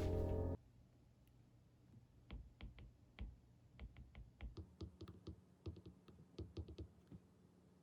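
Background music cuts off about half a second in. It is followed by a faint, irregular run of light taps and clicks, a few a second, of the kind made by typing.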